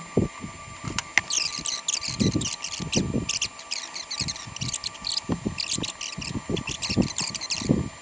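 Pot of water boiling on a portable gas stove with a glass candle jar standing in it: irregular low bubbling bursts with fast, high crackling chirps over them, and a sharp click or two.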